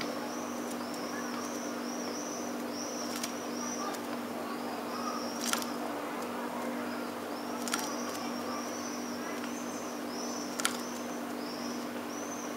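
Small songbird calling a long series of short, high, arched chirps, about three a second in runs with brief pauses. A steady low hum runs underneath, and a few sharp clicks come at scattered moments.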